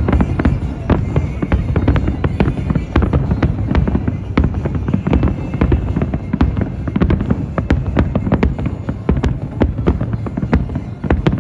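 Aerial fireworks shells bursting in rapid, dense succession, many sharp cracks a second over a continuous heavy low rumble.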